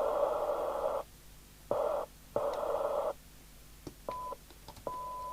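FM CB radio receiver's speaker hiss switching on and off abruptly as the squelch sits at its threshold: the hiss stops about a second in, returns in two short bursts, then two brief bursts of a steady high tone come through near the end.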